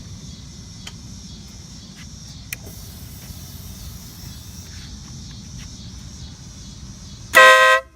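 WOLO Bad Boy air horn on a Harley-Davidson Electra Glide sounding one short blast of about half a second near the end, very loud. Before it there is only a steady low rumble.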